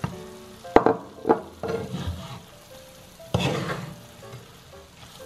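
Wooden spatula stirring and tossing torn dosa pieces through masala in a hot nonstick pan, with frying sizzle. Several uneven scraping strokes and knocks against the pan are heard, the sharpest about a second in. Soft background music runs underneath.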